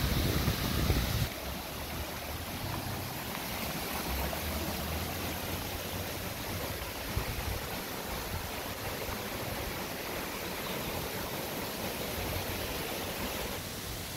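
A small rocky stream rushing and splashing over stones in a shallow cascade: a steady watery rush, louder for the first second or so and then softer and even.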